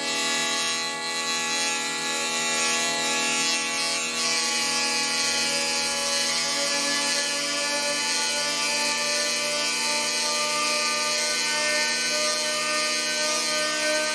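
Amplified hurdy-gurdy holding a dense drone: many steady tones sounding together, with a rasping, scratchy noise on top that thins out about four seconds in.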